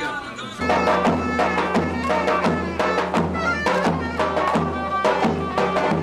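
Traditional Turkish folk music starting about half a second in, with a steady pounding drum beat under a melody.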